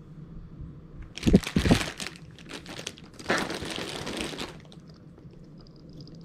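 Plastic packaging crinkling in two bursts as a wrapped bag is handled and set down. The first burst has a few dull thumps.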